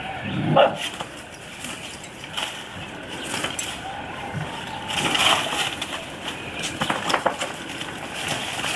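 Scuffling and crackling of dry leaves and debris as a Boston terrier goes at an iguana, with bursts of crackling about five and seven seconds in. A brief, louder low sound comes about half a second in.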